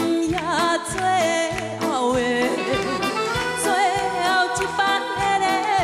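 A woman singing a Taiwanese Hokkien ballad into a microphone with vibrato, over band backing with a steady beat.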